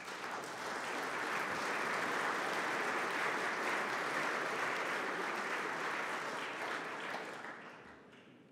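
Audience applauding, building up over the first second or two and dying away near the end.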